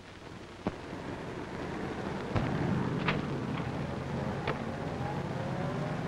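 Steady low rumble of street traffic, growing louder over the first couple of seconds, with a few sharp clicks scattered through it.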